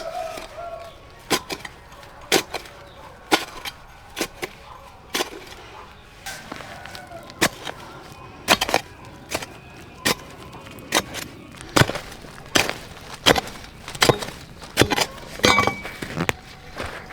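A series of sharp knocks or cracks, roughly one a second, coming a little faster in the second half.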